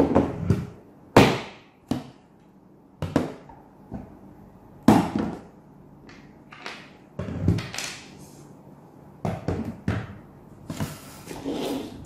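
Hard plastic parts of a Dyson DC58 handheld vacuum being handled and set down on a table: a string of irregular knocks and clatters, the sharpest right at the start, about a second in and near the middle.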